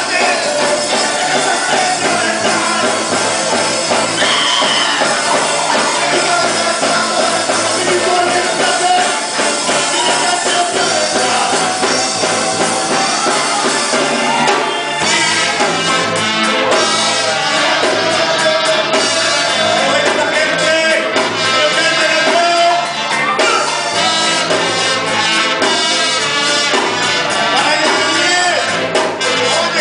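Music with singing over drums and percussion, running steadily and loud, with a busier, more rhythmic stretch from about halfway.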